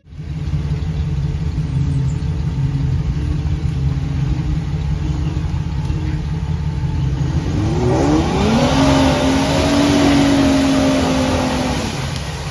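Off-road 4x4's engine running at a low steady rumble, then revved up about eight seconds in and held at high revs for a few seconds before easing off near the end.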